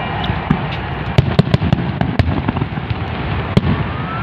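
Aerial fireworks shells bursting in quick, irregular succession: many sharp bangs over a continuous low rumble.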